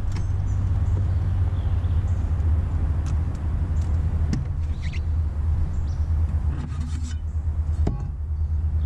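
A steady low rumble, with a few light clicks and taps from fishing tackle being handled on a boat deck.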